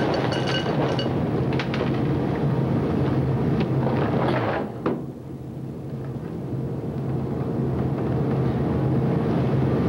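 Dry cereal poured from a cardboard box into a bowl, a rattling rustle with a few clicks that stops about five seconds in, over a steady electrical hum.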